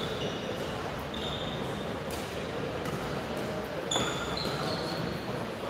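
Court shoes squeaking several times on the badminton court surface, each squeak short and high, with a few sharp knocks, the clearest about four seconds in, over the steady background noise of a large sports hall.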